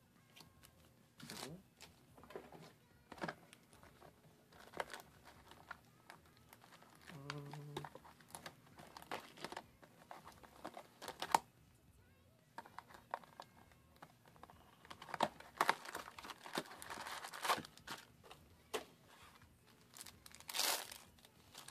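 Foil trading-card booster packs crinkling and being torn open by hand, with cards rustling between the fingers in short irregular bursts. The rustling is heavier near the end.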